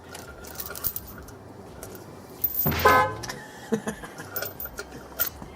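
Metal chain and hooks clinking and jangling as an engine-hoist chain is hooked up, with scattered sharp clicks. About three seconds in comes one short, loud, horn-like pitched sound.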